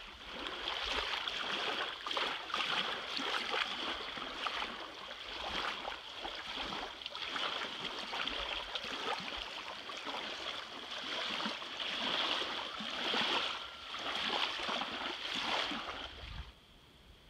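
Running water rushing steadily, swelling and easing a little in loudness, with a constant high hiss in it; it falls away about a second before the end.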